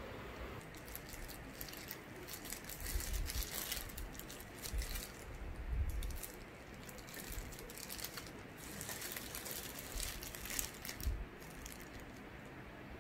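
Disposable plastic gloves crinkling and rustling in two spells as hands handle and stuff fried tofu pouches, with a few dull thumps.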